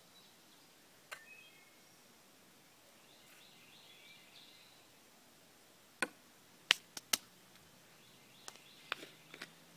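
A handful of short, sharp knocks and clicks, the loudest about six to seven seconds in and a few smaller ones near the end, as small seasoning containers and a metal cup are handled and set down on a wooden table. Faint bird chirps are in the background.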